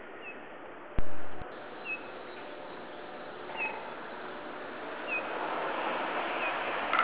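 Bullfinch giving short descending whistled calls, five in all, about every second and a half, over steady background noise. About a second in, a loud thump with a low rumble cuts off abruptly after half a second.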